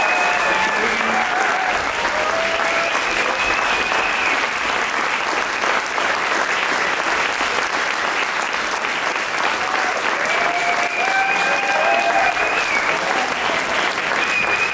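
Audience applauding steadily. A few held, high-pitched cheers ring over it near the start and again about ten seconds in.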